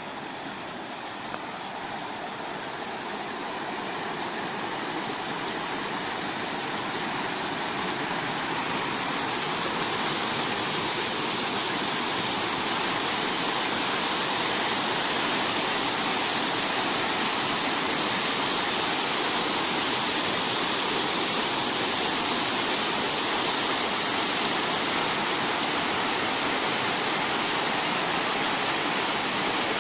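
Waterfall: a steady rush of falling water that grows louder over the first ten seconds or so, then holds steady.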